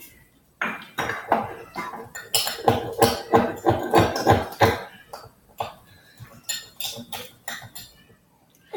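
A utensil clattering and scraping against a bowl or dish: a fast run of knocks and clinks, several a second, over the first half, then scattered knocks.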